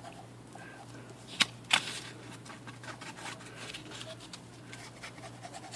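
Faint, irregular scraping and ticking of two-part quick-set epoxy being stirred with a mixing stick, with two sharp clicks about a second and a half in.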